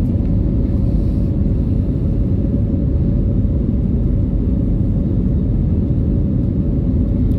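Steady low rumble of an Airbus A320neo's engines and airflow heard from inside the cabin during the climb after takeoff, with a steady hum tone running through it.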